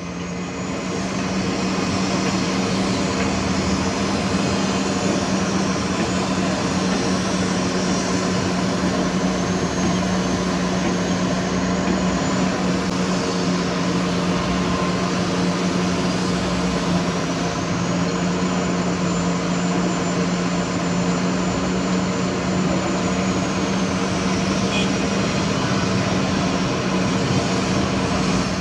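A heavy vehicle's diesel engine running steadily with a low hum. A faint high whine rises and falls twice over it.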